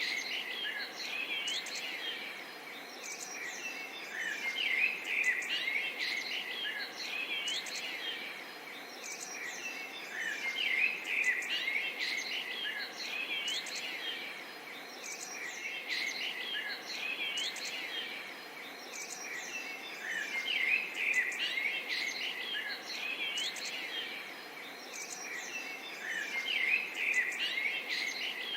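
A dense chorus of small birds chirping and twittering over a faint steady hiss, swelling and easing every five or six seconds.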